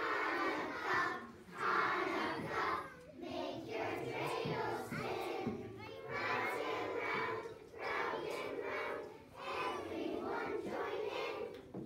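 A choir of young children singing together, loud and a little shouty, in phrases with short breaks between them.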